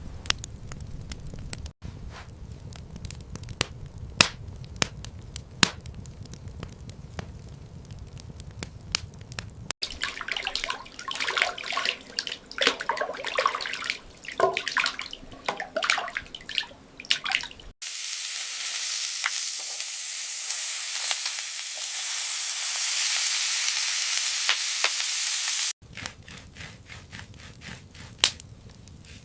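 Kitchen cooking sounds cut together in short takes: scattered sharp clicks and knocks, then a busier run of clatter. In the second half comes a steady high hiss lasting about eight seconds, which cuts off suddenly before the clicking resumes.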